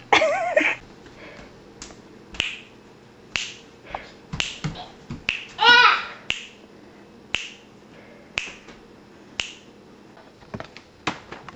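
Finger snaps at a steady pace of about one a second. About halfway through, a toddler lets out a short, high vocal squeal.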